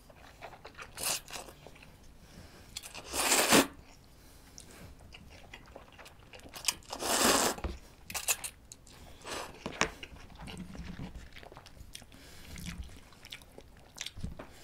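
A person slurping instant ramen noodles and chewing, close to the microphone, with two long, loud slurps about three and seven seconds in and softer chewing and mouth clicks between them.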